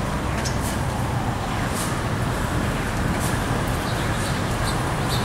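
Thunderstorm ambience: a steady hiss of rain over a low rumble, with scattered faint crackles.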